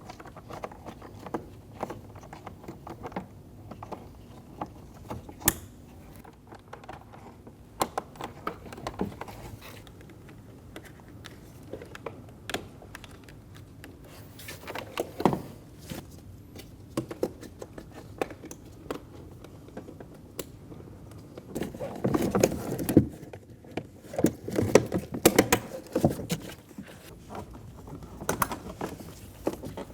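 Scattered clicks and plastic rattling as wiring connectors are pushed into the Volkswagen Passat door panel's switches and the loose trim panel is handled, with a busier stretch of handling noise past the middle.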